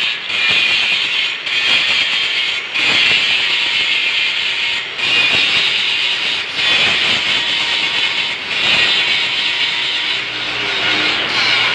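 Electric arc welder burning holes through steel with the electrode: a steady hissing noise that cuts out briefly every second or two as the arc breaks and is struck again.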